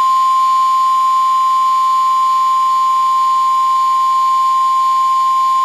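NOAA Weather Radio 1050 Hz warning alarm tone: a single steady, loud, unbroken beep-like tone, the attention signal that a warning such as a severe thunderstorm warning is about to be read.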